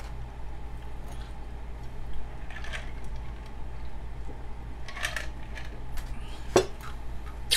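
Drinking from a metal tumbler: a few soft sips and swallows, then one sharp knock near the end, over a steady low hum.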